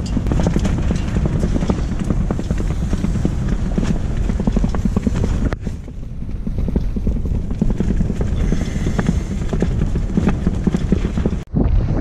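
Kamp Rite tent cot's rainfly flapping and rattling in very strong wind: a constant racket of fabric snaps and clatter over rushing wind, with a short break near the end.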